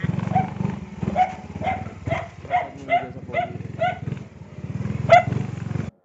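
A dog barking repeatedly, about two barks a second, with one louder bark about five seconds in, over a motorcycle engine running at low speed; the sound cuts off suddenly near the end.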